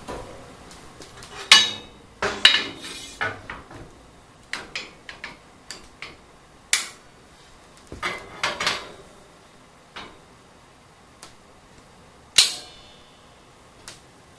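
Irregular knocks and metallic clanks, some ringing briefly, as a seat is handled and set onto a welded metal-tubing go-kart frame. The sharpest clanks come about a second and a half in and again near the end.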